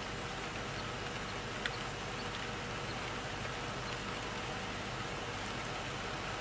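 Steady outdoor background hiss with a faint constant hum underneath, broken once by a small click about a second and a half in.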